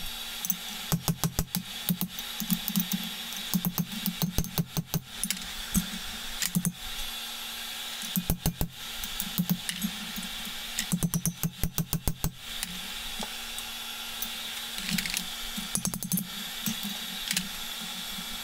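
Hand hammer striking a hot punch driven into a red-hot steel chisel on an anvil, punching the eye hole. The blows come in quick runs with short pauses, thinning to a few single strikes near the end, over a steady hum.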